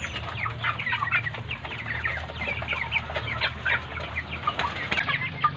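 A flock of 45-day-old broiler chickens calling: many short, overlapping peeps that fall in pitch, over a low steady hum.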